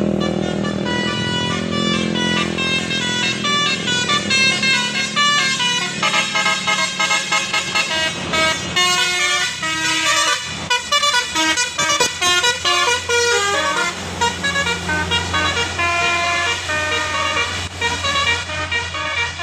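Bus 'telolet' basuri multi-tone horn playing a fast melody of short stepped notes, several horn tones sounding together. A low engine hum runs underneath, stronger in the second half.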